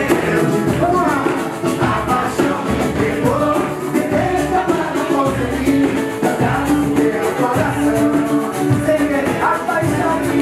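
Live band music: a woman singing over a small four-string cavaquinho, acoustic guitar, keyboard and a hand drum, with shaker-like percussion keeping a steady beat.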